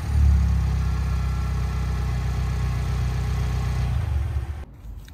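2021 Ford Bronco engine idling steadily through a freshly installed MBRP 3-inch stainless cat-back exhaust. It stops abruptly near the end.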